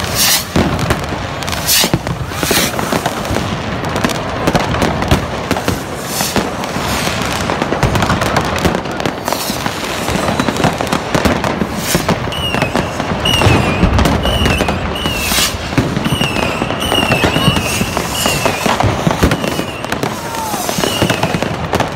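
Fireworks going off in dense succession: rockets and firecrackers banging and crackling without a break. In the second half, short high whistling chirps repeat over the bangs.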